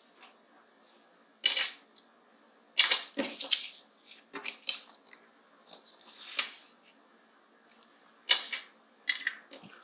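Pencil, ruler and paper being handled on a drawing desk: several sharp clicks, knocks and rustles spaced a second or two apart, with a longer rustle about six seconds in.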